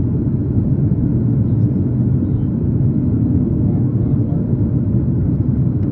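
Steady low rumble of jet cabin noise inside a Boeing 737 MAX 8 on approach to landing: its CFM LEAP-1B turbofans and the air rushing over the fuselage.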